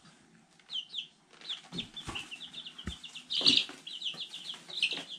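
Week-old chicks peeping: many short, high, falling peeps, sparse at first and thickening into a steady chorus from about a second and a half in. A couple of dull knocks sound in the middle.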